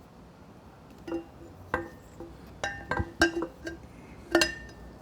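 Metal exhaust header pipe clinking and knocking against the engine and frame as it is slid into place: about six sharp metallic clinks with a short ring, the loudest near the end.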